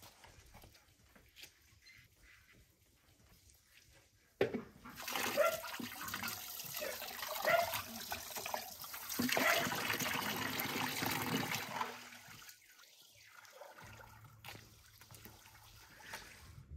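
Water pouring and splashing, starting suddenly about four seconds in and stopping about twelve seconds in.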